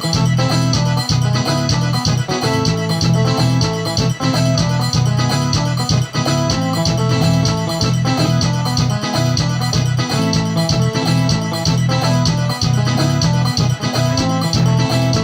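Instrumental music led by an electronic keyboard playing organ-like chords and melody over a bass line and a steady percussive beat.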